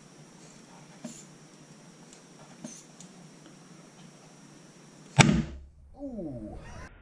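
Softwood pine planks straining under a pump wedge's air bag, with a few faint ticks, then about five seconds in a sudden loud crack as a screw tears out of the wood and the boards spring apart. A short rattle falling in pitch follows.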